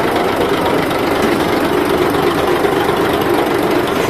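Passenger launch's engine running steadily, a loud continuous drone with a faint even pulse.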